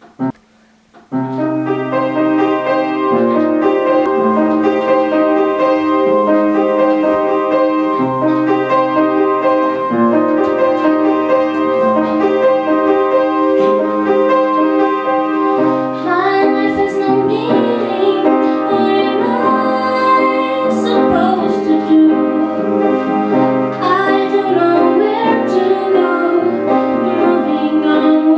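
Piano playing slow sustained chords that change about every two seconds, beginning about a second in. About halfway through, a wavering melody line joins above the chords.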